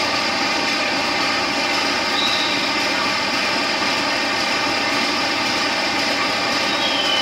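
GE U18C-type CC 201 diesel-electric locomotive idling steadily at standstill, its engine giving an even, many-toned hum. A faint high whistling tone shows briefly about two seconds in and again near the end.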